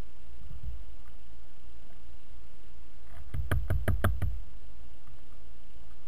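Woodpecker pecking at the feeder: a quick run of five sharp beak taps, about five a second, a little past the middle, with a soft thump shortly before.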